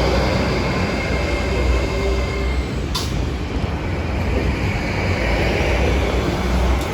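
Train running slowly through a level crossing, a steady rumble of wheels and engine with a faint whine, and one sharp click about three seconds in.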